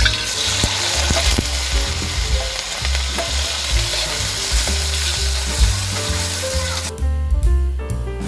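Diced ham sizzling in hot oil in a stainless steel wok as it is tipped in and stirred with a metal spatula. The sizzle cuts off suddenly near the end.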